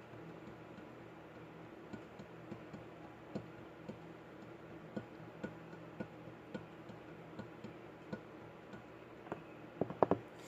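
Scattered light clicks and taps at irregular intervals over a low steady hum, with a quick run of louder clicks about ten seconds in.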